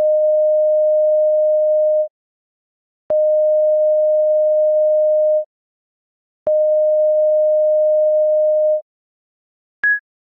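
Synthetic electronic tones standing in for an incoming transmission: three long steady beeps at one mid pitch, each about two seconds with a click as it starts and a second's gap between. Near the end comes one short, higher beep, marking the transmission as received.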